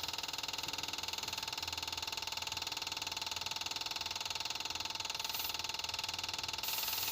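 Electric fuel pump on a 1988 Tennant 255 sweeper running with a steady hum, priming the newly replaced fuel line.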